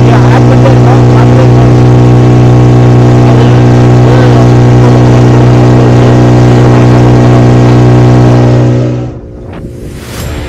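Speedboat engine running at full speed, a loud, steady drone with the rush of water along the hull. About nine seconds in it drops away abruptly.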